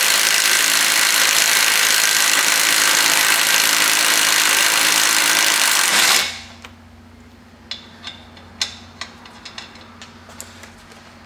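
Cordless impact driver running a 24 mm nut back onto a strut-to-knuckle bolt, rattling continuously and cutting off about six seconds in. A few light clicks of parts being handled follow.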